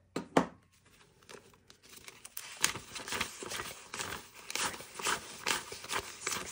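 Two sharp clicks, then paper banknotes being flipped through and recounted by hand: a fast, uneven run of crisp snaps and crinkles.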